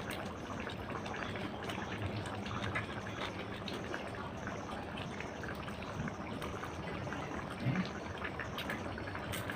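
Chicken curry bubbling in a cooking pan: a steady wet noise dotted with many small pops.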